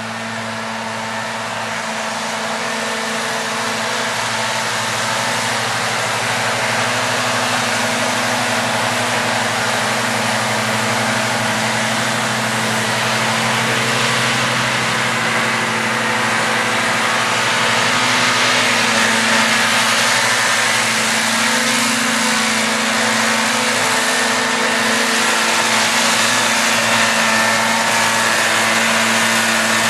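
John Deere 7530 tractor's six-cylinder diesel engine running steadily under load while mowing, with the whir of its front and rear disc mowers cutting grass. It grows louder over the first half as the tractor comes closer.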